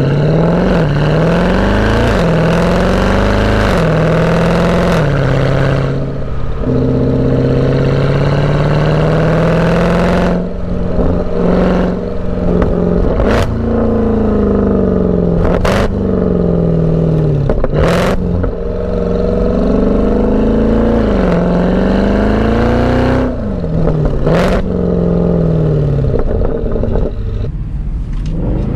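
Mercedes C63 AMG's 6.2-litre V8, with its secondary cats and resonator deleted, heard through a microphone at the exhaust, accelerating hard through the gears. The pitch climbs and falls away at each upshift, with a sharp crack at several of the shifts and a short steady cruise after the first few gears.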